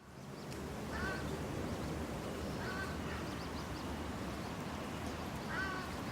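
City park ambience: a steady background hum and hiss, starting abruptly, with three short bird calls about a second in, near three seconds, and near the end.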